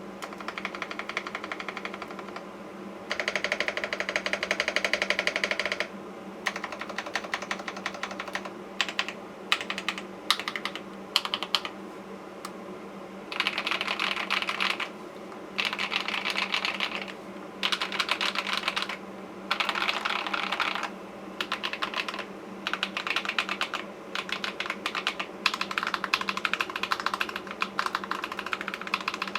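Typing on a Tecware Veil 87 mechanical keyboard with Akko Cream Blue V3 switches: rapid key clacks in runs of a few seconds with short pauses between, over a low steady hum.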